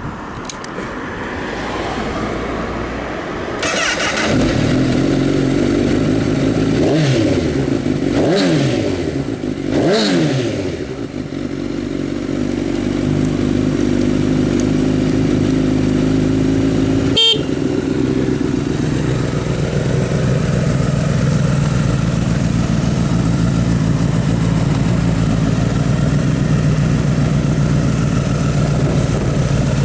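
Honda CBR1000RR SP (SC59) inline-four through a loud aftermarket exhaust. It comes on loud about four seconds in, is revved three times in quick rises and falls, then idles steadily. A single sharp click is heard about halfway through.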